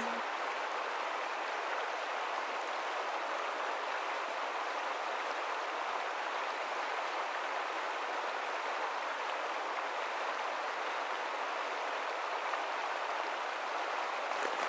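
Steady rush of a shallow, rocky river flowing over its stones.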